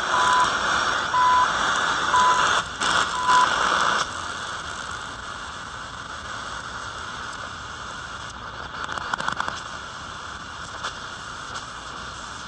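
CHU Canada shortwave time signal on 3330 kHz from a Yewrich YR-RU8 portable radio's speaker: short beeps once a second over loud hiss. About four seconds in, the signal drops away as the dial is turned, leaving quieter static and hiss with scattered crackles.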